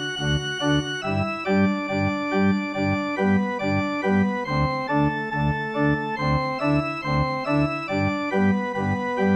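Diatonic button accordion (organetto) playing a brisk polka melody in sustained reedy notes over a regular oom-pah bass-and-chord accompaniment, about two bass beats a second.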